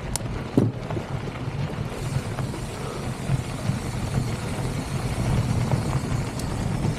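Steady rumbling wind buffeting on the microphone, mixed with the tyres of a Polygon Siskiu mountain bike rolling over a loose, rocky trail. There are a few sharp clicks and knocks in the first second as the bike rattles over stones.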